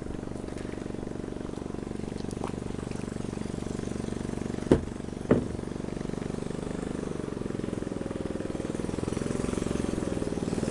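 A small engine running steadily, its speed wavering slightly in the second half, with two sharp knocks a little over half a second apart near the middle.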